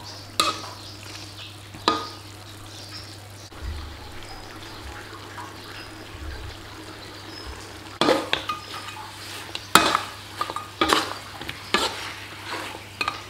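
Pork ribs with lemongrass and kaffir lime leaves sizzling in a pan as they are stir-fried, with a spatula scraping and knocking against the pan. A couple of knocks come near the start. The stirring turns busy from about eight seconds in, with the loudest knocks there.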